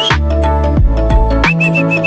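Background music with a strong electronic beat: deep bass hits about every 0.8 seconds under sustained synth chords, with a short high repeated riff about one and a half seconds in.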